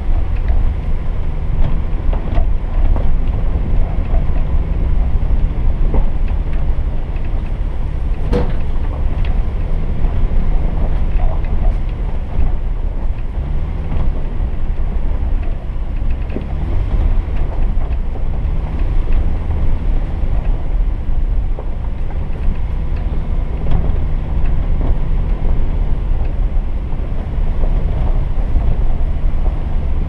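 4x4 vehicle driving slowly over a rough dirt trail: a steady low engine and drivetrain rumble with tyres crunching over dirt and stones, and scattered small knocks and rattles. One sharp knock about eight seconds in.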